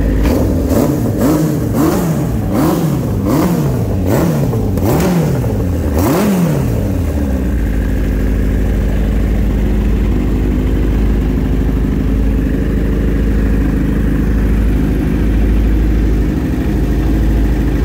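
Warm Dresda café racer motorcycle engine revved in about nine quick throttle blips over the first six seconds, each a sharp rise and fall in pitch, then settling to a steady idle.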